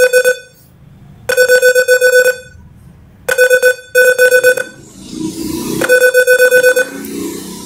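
Simulated buzzer of an Arduino alarm clock in Proteus beeping, the alarm going off: the Arduino switches it on and off to give about one-second bursts of rapid, pulsing beeps, repeating every couple of seconds.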